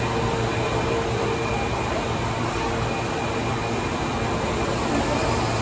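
Osaka Metro 21 series subway train rolling slowly along the platform: a steady running noise with a low hum and a faint steady whine.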